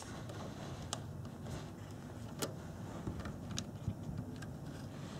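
A few faint, scattered metallic clicks and taps as a wrench is set on the throttle cable's locking nuts, over a low steady room hum.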